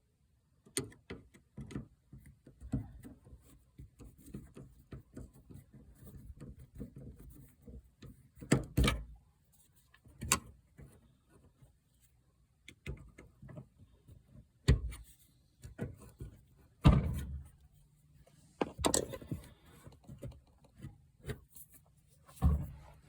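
Irregular knocks, clicks and thunks, with several louder thuds, over a faint low steady hum.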